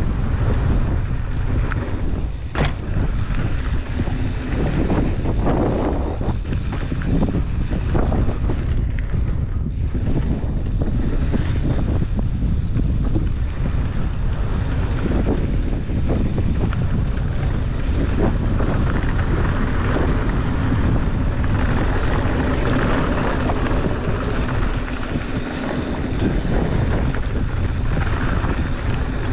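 Mountain bike ridden fast down a dirt flow trail. Steady wind buffeting the microphone over the rumble of the tyres, with knocks and rattles from the bike over bumps, the sharpest about two and a half seconds in.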